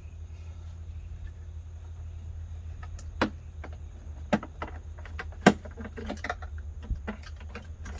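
Sharp plastic clicks and light knocks as spark plug wires are popped out of their plastic brackets by hand, the loudest about halfway through, over a steady low hum.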